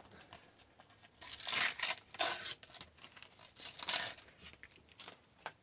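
A sticker pack wrapper being torn open and crinkled by hand, in a few short rustling bursts, the loudest about a second and a half and four seconds in.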